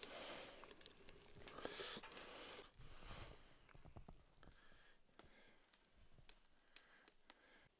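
Faint crackling of a wood fire burning in a rocket stove, with steaks grilling on its grate: a soft hiss for the first few seconds, then scattered small pops.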